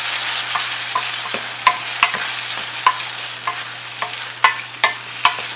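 Chopped tomatoes and onions sizzling in hot oil in a stainless steel pan while being stirred with a wooden spatula. The spatula knocks against the pan in repeated short, ringing taps over the steady sizzle.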